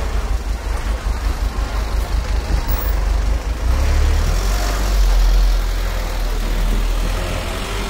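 City street noise: a loud low rumble that swells about four seconds in and eases off near the end.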